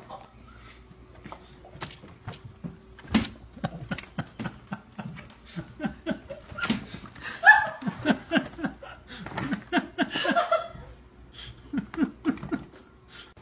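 A person laughing in many short, rapid bursts that build to the loudest stretch about seven to ten seconds in, then fade and pick up again near the end. A few sharp knocks are mixed in.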